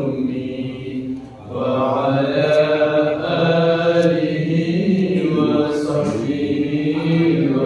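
A man's voice chanting salawat, devotional blessings on the Prophet, unaccompanied. He sings long, melismatic held notes, with a short breath pause about a second in.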